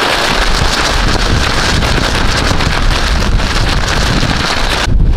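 Strong windstorm gusts buffeting the microphone as a heavy low rumble, with hiss and a scattered crackle above it. Near the end the hiss drops away suddenly and the rumble grows louder.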